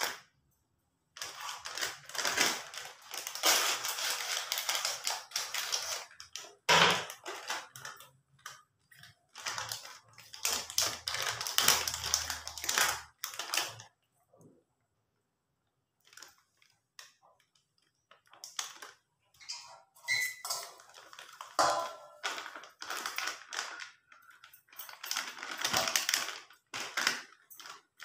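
Crinkling and crackling of a plastic pancake-mix packet being handled and tipped out, in several bursts with a short pause about halfway through.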